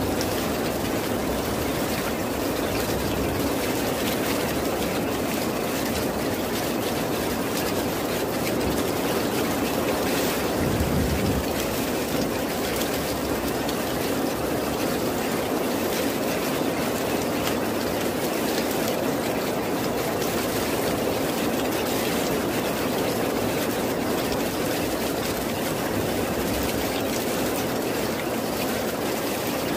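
Steady rain, a dense even hiss, with a brief low rumble of distant thunder about ten seconds in.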